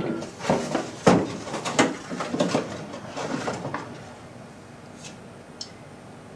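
Knocks, clicks and rustling as parts and tools are handled in a car's engine bay. The strongest knocks come about a second in and just under two seconds in, then it quiets after about four seconds, with two light ticks.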